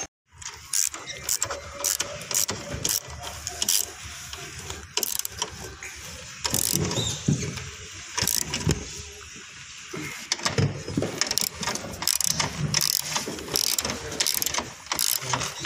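Irregular metallic clicks and clinks of bolts and an aluminium mounting bracket being handled and fitted while a running board is bolted on, with soft knocks in between.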